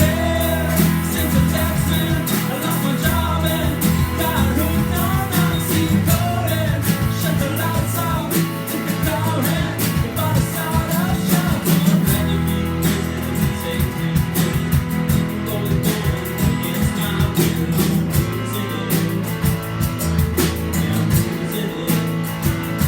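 Small band jamming live: strummed guitars over sustained bass notes that change every few seconds, with a singing voice carrying the melody in the first several seconds.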